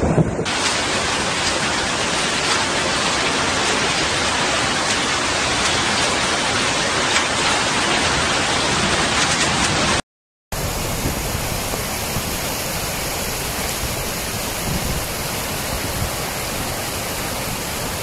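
Steady rushing hiss of floodwater pouring down a street. It breaks off in a brief silence about ten seconds in, then the same rush resumes.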